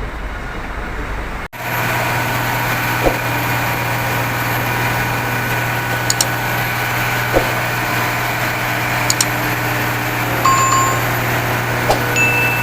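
Construction machinery running with a steady engine drone, broken by a few scattered knocks and clicks and some short high beeps near the end. The sound cuts abruptly to this about a second and a half in.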